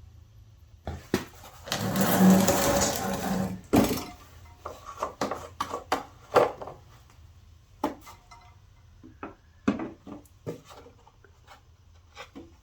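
Handling noise from working on a lawnmower: a louder rattling, whirring stretch of about two seconds near the start, then a run of separate knocks and clicks.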